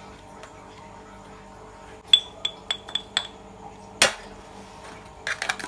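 Metal spoons clinking together about five times, each tap with a short bright ring, as cupcake batter is scraped off into a foil cup; then one louder sharp knock, and a quick run of light clicks from aluminium foil cups being handled near the end.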